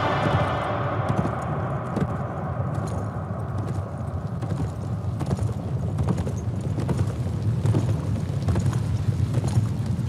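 Several horses galloping on a dirt track: a quick, uneven drumming of hoofbeats over a low rumble.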